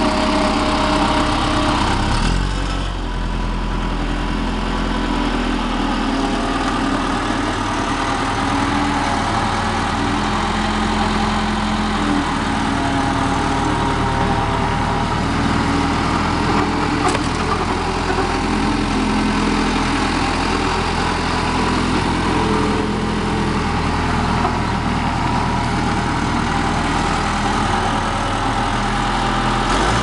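Case 1840 skid steer's diesel engine running steadily, with a deeper low drone setting in about two seconds in.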